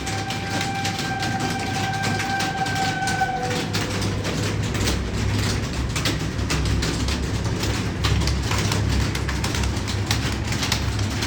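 Many computer keyboards being typed on at once, a dense, irregular clatter of key clicks over a low steady hum. For the first three and a half seconds a steady high tone sounds over it, then drops in pitch and stops.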